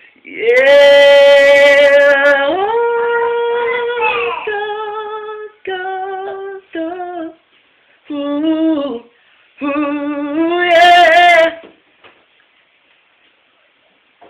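A man singing unaccompanied in a high voice: long held notes and wavering vocal runs without clear words, in several phrases with short breaths between. The singing stops about two seconds before the end.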